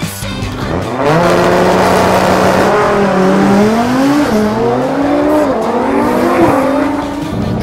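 Drag-racing car launching hard from a standing start. The revs hang for a moment, then climb through quick upshifts, the engine's pitch rising and dropping back about three times. The crew judged it a weak launch, made with low boost-building revs on the line.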